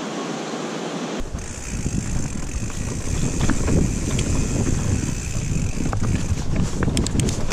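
Rushing river water over rocks for about a second. It cuts abruptly to a mountain bike riding a dirt forest trail: a rough rumble of the tyres and frame over the ground with wind buffeting the microphone, and sharp rattling clicks, several close together near the end.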